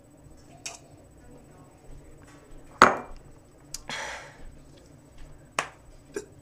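Several sharp knocks and clinks of hard objects being handled, the loudest about three seconds in, followed by a brief rustling hiss.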